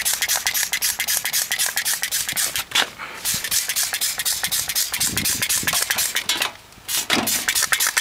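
Hand-pumped trigger spray bottle squirting degreaser in a fast run of short hissing sprays, pausing briefly about three seconds in and again near the six-and-a-half-second mark.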